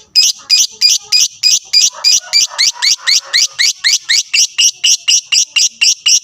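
Lovebird singing in a long run of sharp, high rising chirps, about five a second, speeding up a little as it goes: the drawn-out chattering song that lovebird keepers call ngekek.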